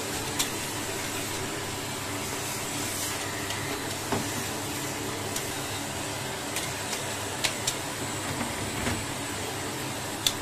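Vacuum cleaner running steadily, its brush nozzle drawn over a tumble dryer's lint filter to suck the lint out, with a few sharp clicks along the way.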